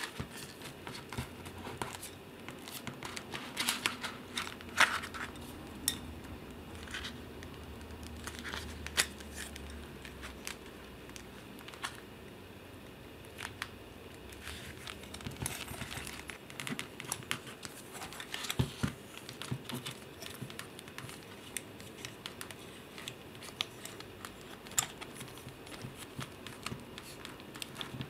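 Clear plastic waterproof phone pouch being handled, crinkling and rustling, with scattered sharp clicks from its plastic clip closure and from the phone being worked inside it.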